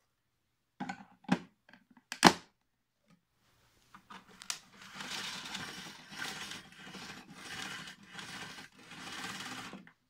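Plastic knocks and clicks as the filter housing is fitted onto the top of a Globaltek Guardian C135B cylinder vacuum cleaner, the loudest knock about two seconds in. Then, from about four seconds in, the machine's power cord is drawn out in about five noisy pulls with short breaks between them.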